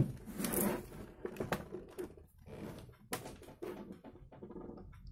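Hands working a laptop's keys and buttons: a sharp click at the start, then a few scattered clicks and taps with soft handling noise between them.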